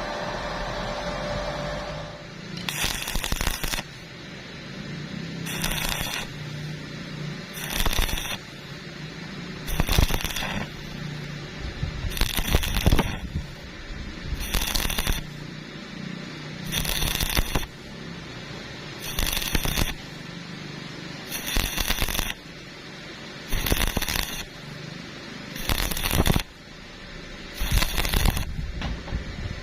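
Electric arc welding crackling in about a dozen short bursts, each under a second and coming roughly every two seconds, after a steady machine hum in the first two seconds.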